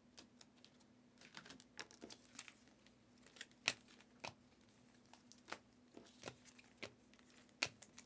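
Panini Prizm trading cards being flipped through one at a time in a stack, making faint irregular clicks and slides, with one sharper click about three and a half seconds in.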